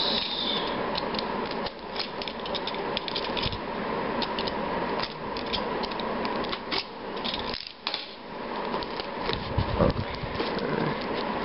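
A plastic-wrapped cardboard packet being cut and torn open with a box cutter: crackling and scraping with many sharp clicks throughout.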